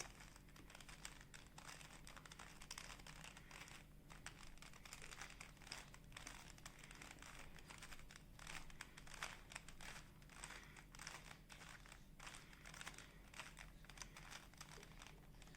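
Faint, irregular plastic clicking of a Rubik's cube's layers being turned over and over in a repeated move sequence, over a faint steady low hum.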